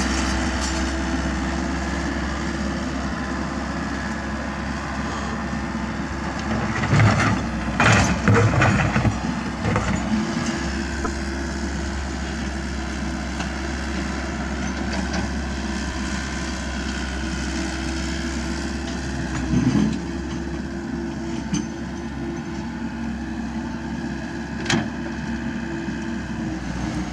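Komatsu PC78US mini excavator's diesel engine running steadily as it digs, with loud knocks and scrapes of the bucket in soil and stones, the loudest cluster about seven to ten seconds in and single knocks near the end.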